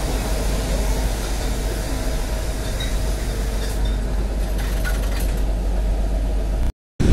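Narrow-gauge Kalka–Shimla toy train running slowly, heard from a carriage window: a steady low rumble of wheels on rail with a few faint clicks in the middle. The sound cuts out briefly near the end.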